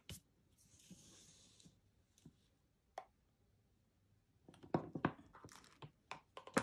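Faint paper-craft handling sounds. A card panel slides briefly across a grid craft mat about a second in. From about 4.5 s, a clear acrylic stamp block is picked up and handled with a run of light clicks and knocks.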